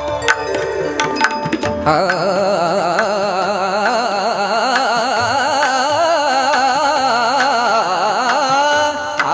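Pakhawaj strokes over steady sustained notes, then about two seconds in a male devotional singer enters with a high, fast-wavering wordless vowel run. The drum continues more softly beneath the voice.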